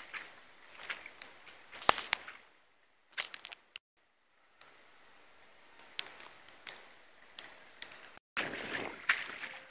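Irregular clicks and rustles of footsteps and phone handling while walking over waterlogged grass. The sound cuts out completely twice.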